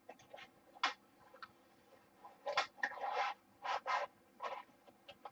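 A cartridge's cardboard box and its contents being handled and packed: a series of short scraping and rustling sounds, the longest about halfway through.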